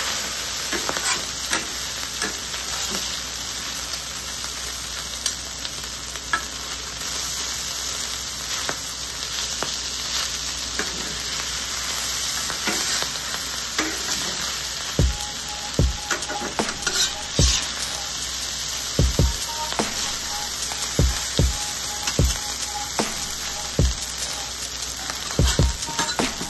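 Fried rice sizzling on a hot steel flat-top griddle while metal spatulas scrape and turn it. From about halfway through, the spatula edges knock sharply against the plate a dozen or so times.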